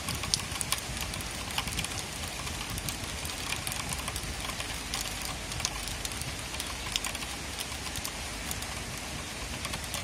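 Steady rain falling, with irregular sharp taps of drops striking a surface.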